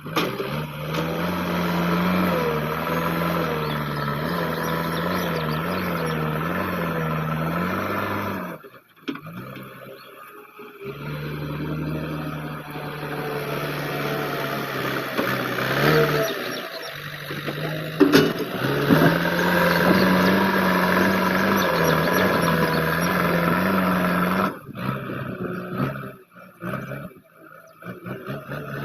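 JCB 3DX backhoe loader's diesel engine running and working, its pitch stepping up and down as the load changes. A few sharp knocks sound past the middle, and the engine sound drops away abruptly a few times.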